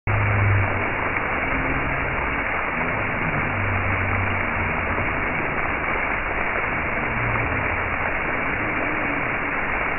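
Steady, dull hiss of many water jets spraying up from a ground-level plaza fountain and falling back onto the paving.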